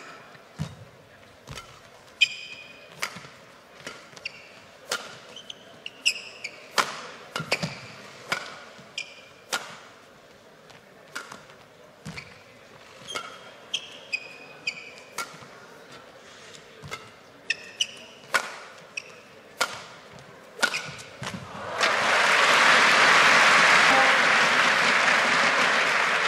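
Badminton rally: sharp smacks of rackets striking the shuttlecock roughly once a second, with short squeaks of shoes on the court mat in between. About 21 seconds in, the rally ends and the arena crowd breaks into loud applause.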